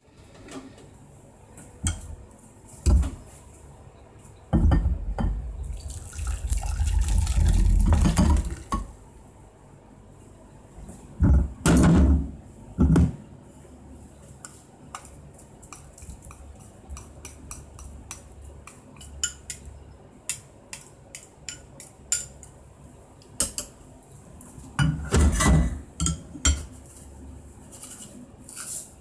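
Soba noodles and broth poured from a pot into a ceramic bowl, a few seconds of pouring and splashing, followed by sharp knocks and small clicks of the pot, bowl and utensils, with another burst of knocks near the end.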